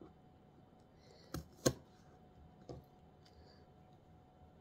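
Three short, light knocks on a cutting board as pieces of cut bok choy are handled and set down, the second the loudest, over faint room tone with a low steady hum.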